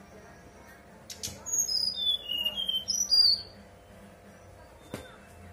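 Brown-chested jungle flycatcher singing one short phrase of clear, flute-like whistled notes that step down in pitch, lasting about two seconds and starting about a second and a half in. Two sharp clicks come just before the song and one more near the end.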